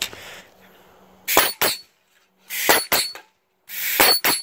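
Pneumatic staple gun, its contact safety removed, fired three times at aluminium soda cans, about 1.3 seconds apart. Each shot is a short hiss of air ending in two sharp cracks as the staple is driven through the thin can.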